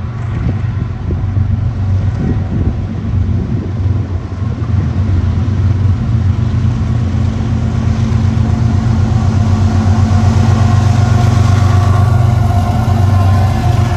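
CSX freight train's diesel-electric locomotives running as they come up and pass close by: a steady low engine drone that grows louder over most of the stretch.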